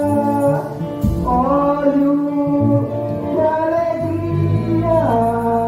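A man singing a slow Pentecostal praise chorus (a 'corinho de fogo') into a microphone, holding long notes that step from pitch to pitch, with musical backing underneath.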